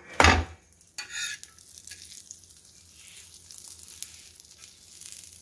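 A stuffed chapathi flipped over with a steel spatula on a hot tawa: a sharp knock at the start and a smaller one about a second in, then a steady faint sizzle of butter and oil frying on low flame.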